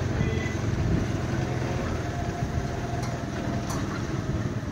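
Motor scooter engine running steadily while riding along, with rumbling wind and road noise.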